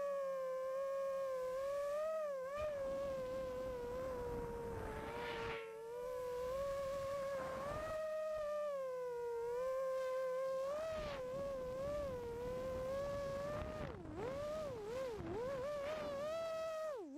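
FPV quadcopter's motors and propellers whining, the pitch wavering up and down with the throttle, with a few quick dips in pitch near the end and a sharp drop right at the end.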